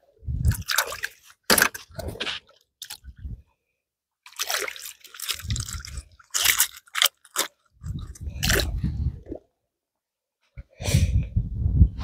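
Wet squelching and crunching noises in short bursts, broken by several abrupt silences.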